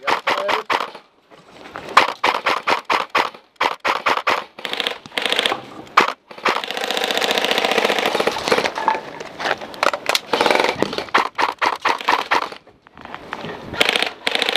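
Airsoft guns firing in rapid clicking bursts of shots, with one unbroken full-auto burst of about two seconds near the middle.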